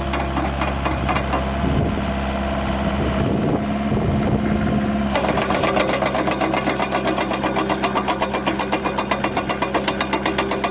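Hyundai R555-7K excavator's diesel engine running steadily; about five seconds in the sound changes and settles into an even pulsing rhythm.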